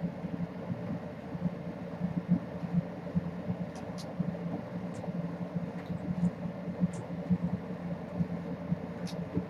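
Steady low hum of room noise, with a few faint, short high ticks scattered through the middle and toward the end.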